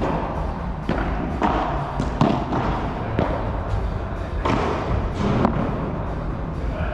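Padel rally: the ball is struck by rackets and bounces off the court and walls in a run of sharp hits and thuds, about nine at uneven intervals.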